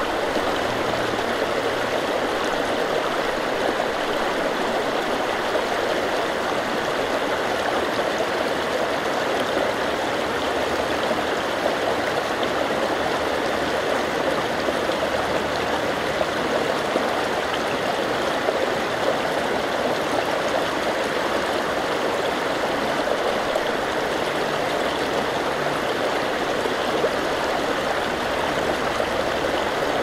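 River water rushing steadily over rocks and shallow rapids, an even, unbroken stream sound.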